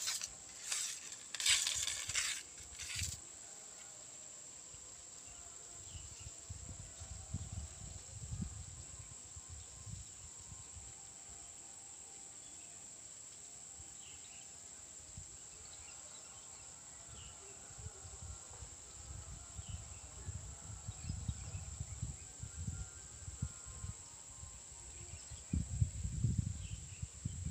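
Insects droning in one steady high-pitched tone, with a few short rustles in the first three seconds and gusty low rumbling that comes and goes from about six seconds in, strongest near the end.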